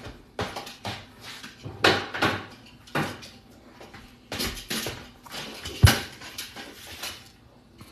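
Kitchen clatter of a metal baking sheet being handled and set down: a string of separate knocks and clunks, the sharpest about six seconds in.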